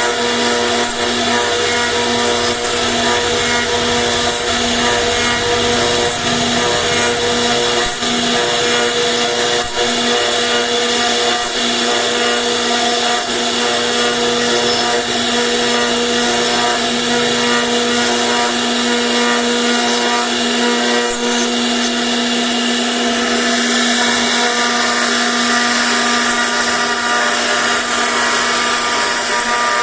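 CNC router spindle running with a steady whine as its bit carves wood.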